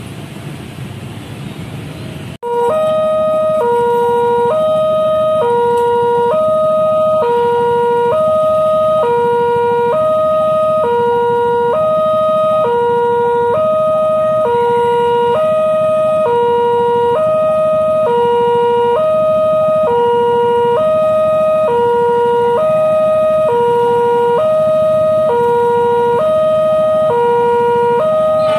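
Railway level-crossing warning alarm sounding as the crossing closes. It is a steady electronic two-tone ding-dong, alternating a low and a high tone about once every 1.7 seconds, and it starts abruptly about two seconds in.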